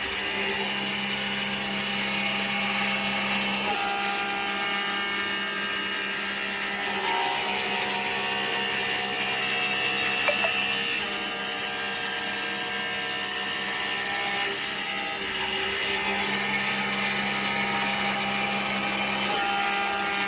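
CNC machine tool running and cutting metal: a steady whine with hiss over it. A low hum drops out about four seconds in and comes back near the end, and there is one sharp click about halfway through.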